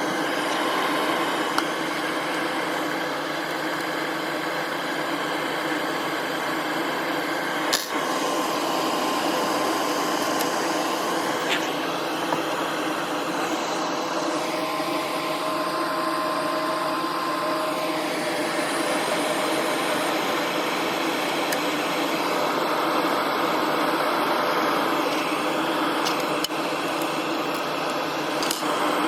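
Laser back-glass removal machine running with a steady fan-like whir and faint steady whine tones, stripping the glue under an iPhone back glass; a single sharp click about eight seconds in.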